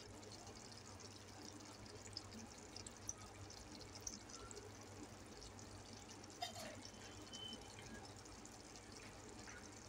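Near silence: faint room tone with a steady low hum and a few soft, small ticks.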